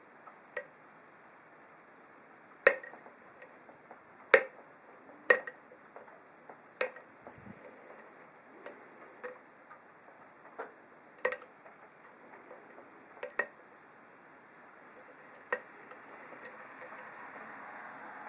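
Picking an ASSA SCD 7-pin oval pin-tumbler cylinder with a hook pick and wire tension wrench: about a dozen sharp metal clicks at irregular intervals, the loudest in the first few seconds. Faint rustling handling noise rises near the end.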